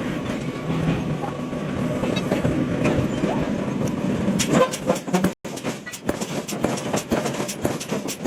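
Heavy forging-shop machinery running, a dense rumble full of metal clanks and knocks. It breaks off for an instant about five seconds in, and the clanks are sharper and more separate after that.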